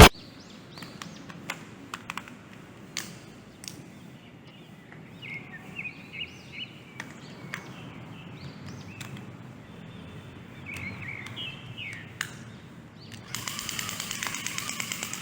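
Plastic toy packaging being handled, with scattered clicks and crinkles and a louder rustle near the end, while birds chirp in the background.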